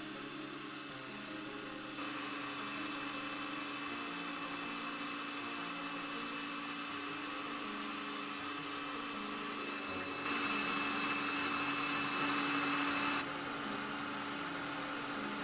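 Kitchencook stand mixer running steadily with its whisk, beating eggs and sugar until they turn pale and thick. It gets louder about two seconds in, and louder again for about three seconds past the middle.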